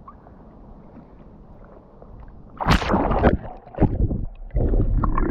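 River water sloshing and splashing close to the microphone, quiet at first and then loud from about halfway through, with a steady heavy rumble near the end.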